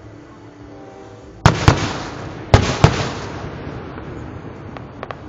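Aerial fireworks bursting: four loud bangs in two close pairs about a second apart, each followed by fading crackle. A few faint pops come near the end.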